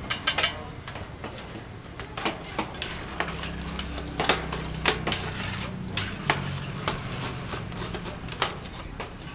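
Irregular clatter and clicks of utensils against dishes or pans, with a few sharper knocks, over a low steady hum.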